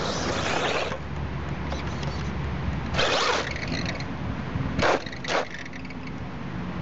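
Electric radio-controlled car driving on a dirt track, a steady low rumble broken by loud bursts of tyre and dirt noise near the start, about three seconds in, and twice around five seconds.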